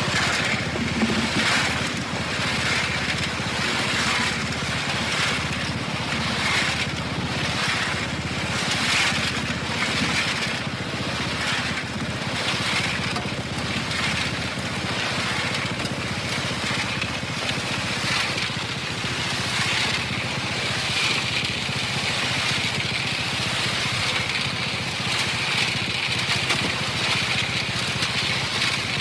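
Cement mixer motor running steadily while gravel tumbles and scrapes round in the turning drum, in a repeating swish about once a second.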